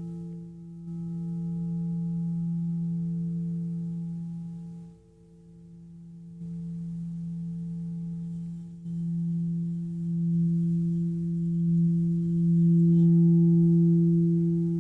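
Singing bowls ringing a steady low hum with a clear higher tone above it and a slow waver. The sound steps up suddenly about a second in, again about six and a half and nine seconds in, as the bowls are sounded again, and swells to its loudest near the end.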